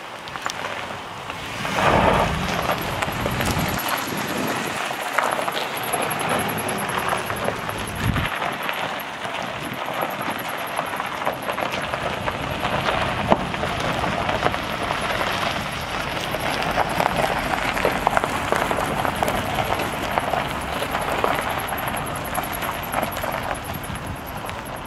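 The 2007 Ford F-150's 4.6-litre SOHC V8 running steadily, getting louder about two seconds in.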